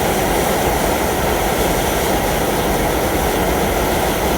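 Omega outdoor high-pressure wok burner turned up to full flame, its gas jet burning with a loud, steady rushing roar.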